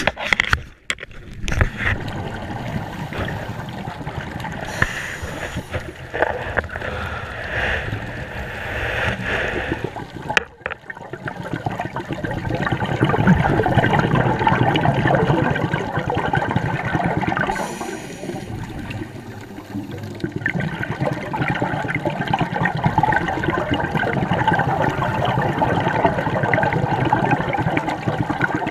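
Underwater sound of a scuba diver breathing through a regulator: long gurgling rushes of exhaled bubbles.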